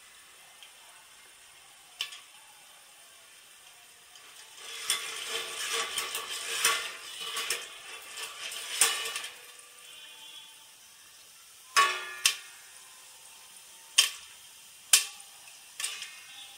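Popcorn kernels heating in hot oil in a wok covered with a steel plate. About four seconds in, a few seconds of dense sizzling and rattling as the covered wok is shaken on the burner. After that come single sharp pops, about five, as kernels burst against the steel lid.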